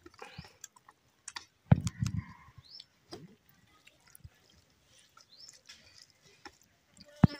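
Eating by hand from a steel plate: fingers mixing and squishing rice with dal, with scattered small clicks and two loud knocks, one about two seconds in and one near the end. Short bird chirps sound now and then.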